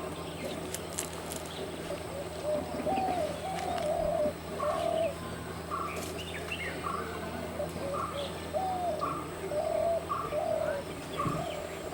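Birds calling: a run of short, arched call notes repeating about once or twice a second, with scattered higher chirps over them.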